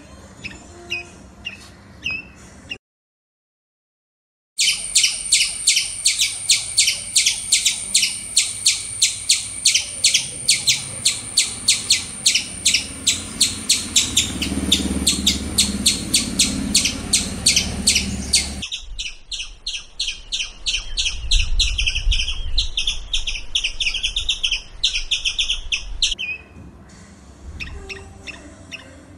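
Squirrel calls pieced together from several recordings. Scattered short high chirps come first, then a brief gap of silence about three seconds in. After the gap comes a long, fast run of sharp chattering calls, several a second. The calls change character about two-thirds of the way through and thin out to scattered chirps again near the end.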